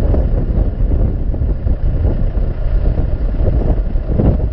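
Tractor engine running close by while a tractor-mounted post driver works a wooden fence pole into the ground, with irregular knocks over a steady low rumble.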